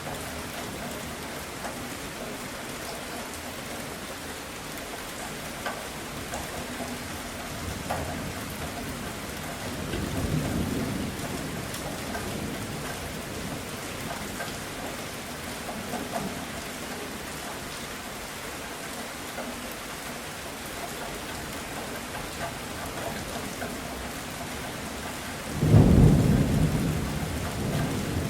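Steady rain falling, with thunder rumbling: a soft low rumble about a third of the way in and a louder, longer rumble near the end.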